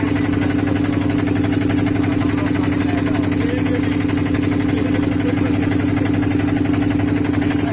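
Engine of a motorised river boat running steadily under way, an even drone with a strong constant hum.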